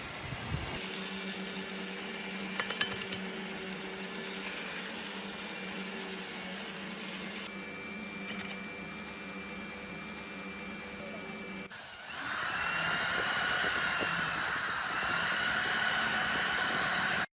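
Electric power tool running: a steady motor hum with a few sharp clicks, then from about twelve seconds in a louder, higher whine that wavers in pitch before cutting off abruptly.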